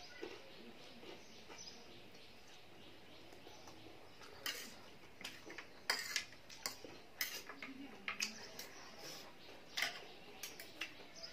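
Metal fork and spoon clinking and scraping against a serving tray as ramen noodles are stirred and twirled. The sharp clicks come irregularly from about four seconds in, after a quieter start.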